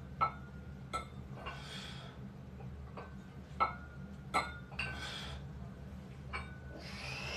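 Metal weight plates on a small dumbbell clinking against each other as it is lifted, about six sharp clinks with a short metallic ring, and heavy breaths out three times between them.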